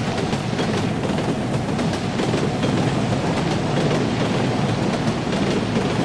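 Steady low rumble of a subway train running, as heard inside the carriage, with faint ticks scattered through.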